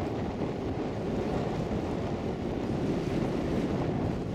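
Wind buffeting the microphone outdoors: a steady, low, uneven rumble.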